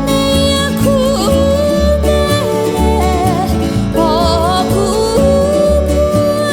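Background music: a song with a singer's wavering melody over strummed acoustic guitar and a steady bass line.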